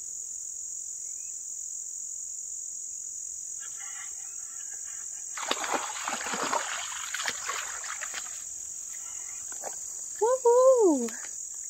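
A steady, high-pitched chorus of crickets and other insects throughout. A few seconds of rough noise come in the middle, and near the end a woman gives a short rising-and-falling exclamation as a crappie is lifted from the water.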